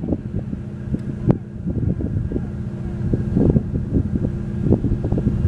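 Steady low engine drone of the Seastreak Commodore high-speed catamaran ferry running at speed across the water, with gusts of wind buffeting the microphone and a single sharp click about a second in.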